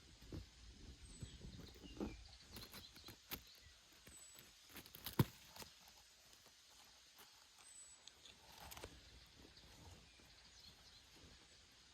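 Scattered raindrops pattering and dripping irregularly over a faint hiss, with one sharper, louder tap about five seconds in.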